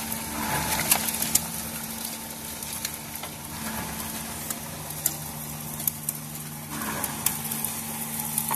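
Electric soil crusher running with a steady hum while lumps of clay soil are shoveled into its hopper; the soil rattles and crackles as it is crushed, with scattered sharp clicks of hard lumps striking inside.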